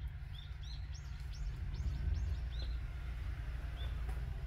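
Small birds chirping, many short rising-and-falling chirps in quick succession, over a steady low rumble.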